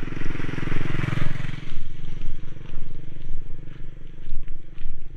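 A small step-through motorcycle passes close by on a gravel track, its engine loudest about a second in and then fading away. Footsteps crunch on gravel in a steady walking rhythm.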